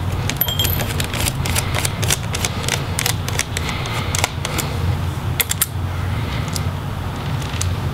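Phillips screwdriver loosening the heatsink screws of an Acer Nitro 5 laptop: irregular small clicks and scrapes of metal on metal, with a brief metallic tink about half a second in. A steady low hum runs underneath.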